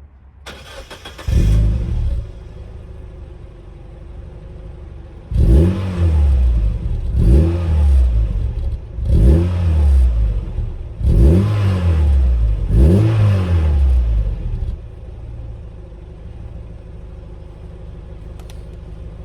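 Mazda MX-5 four-cylinder engine through its standard rear exhaust box. The engine flares about a second in and settles to idle, then is revved five times in quick succession, each rev rising and falling back, before it returns to a steady idle.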